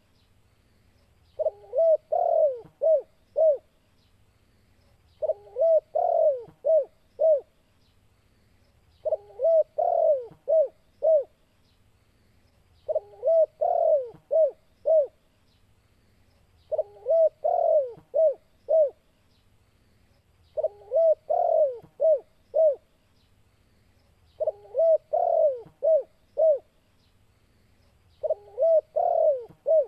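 Spotted dove (tekukur) singing its cooing phrase, a few notes ending in short quick coos, repeated eight times at an even interval of about four seconds. This is the excited territorial song of a bird in breeding condition, challenging a rival.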